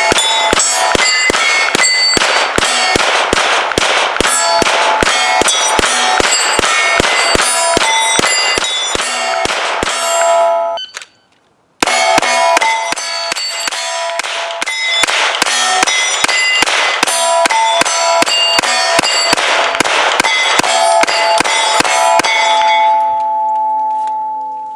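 Glock 17 9mm pistol fired in two long rapid strings, about two to three shots a second, with a short pause between them. Each shot is followed by the clang and ringing of steel targets being hit, and the ringing dies away near the end.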